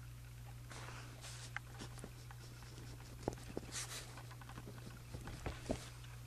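Pen writing on journal paper: short scratchy strokes and small sharp taps, uneven in rhythm, over a steady low hum.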